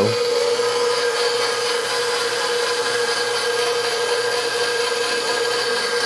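Electric stand mixer running on low speed, stirring dry flour, baking powder and salt in its bowl: a steady motor hum.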